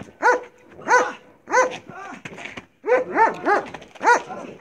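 Belgian Malinois barking at a helper during bite-work agitation: about eight short, sharp barks, roughly two a second, with a brief pause near the middle.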